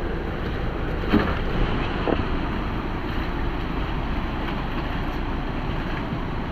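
Off-road 4x4 on the move: a steady rumble of engine and driving noise with wind on the microphone, and a short knock about a second in.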